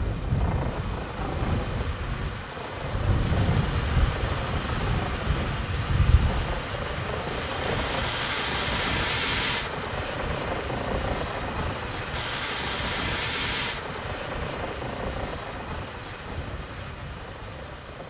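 Steam ploughing engine and its cable-drawn plough at work: low rumbling chuffs in the first few seconds, then two spells of hissing, about eight and twelve seconds in, with the sound fading away near the end.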